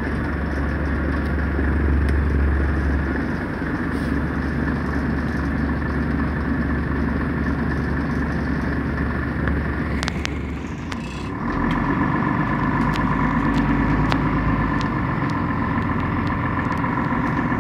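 Interior noise of a Scania city bus under way: the engine and drivetrain run steadily with a low hum. About ten seconds in the sound dips briefly, then picks up again with a steady whine added.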